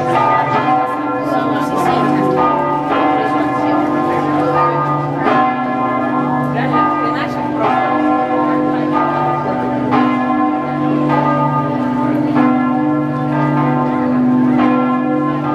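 Church bells ringing from a bell tower: several bells struck over and over, about one or two strikes a second, their tones overlapping into a continuous ringing hum.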